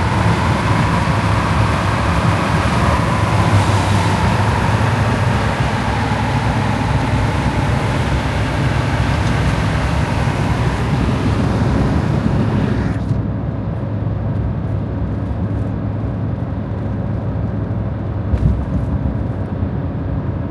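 Steady road and engine noise of a truck towing a car trailer at highway speed, heard from inside the cab. About two-thirds of the way through the hiss suddenly turns duller while the low drone carries on.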